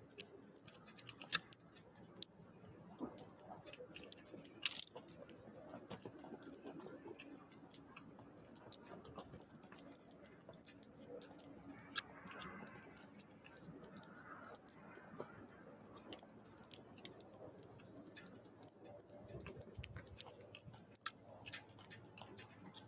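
Small birds pecking at seeds on a feeder: irregular sharp taps and clicks over a faint steady background.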